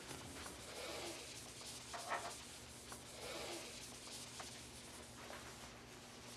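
Faint rustling and scratching of paper and pencils being handled, with a few soft taps.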